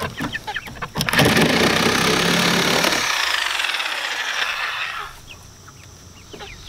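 Reciprocating saw cutting through the wooden siding of a coop wall. It starts about a second in, runs for about four seconds and then stops.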